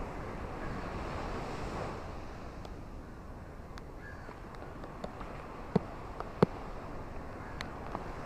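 Steady wash of ocean surf and rain, with scattered sharp drop ticks and two louder ones a little after halfway.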